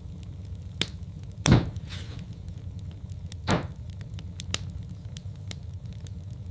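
Wood fire burning in a fireplace: a steady low rumble with small crackles throughout. A loud pop comes about a second and a half in and a second one about two seconds later; the first is the loudest.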